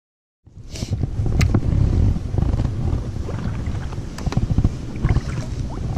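Uneven low rumble of wind buffeting the microphone of a camera mounted on a kayak out on the water, with a few sharp knocks. The sound begins abruptly about half a second in.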